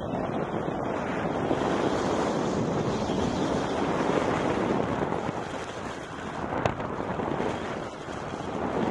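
Wind rushing over the microphone of a camera held out from a paraglider in flight: a steady noise that swells a little in the first half, with one short click about two-thirds of the way through.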